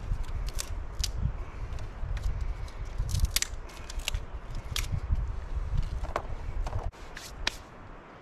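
Dry sticks snapping as they are broken by hand for kindling: a string of sharp, irregular snaps and cracks over a low rumble. The sound drops off abruptly about seven seconds in.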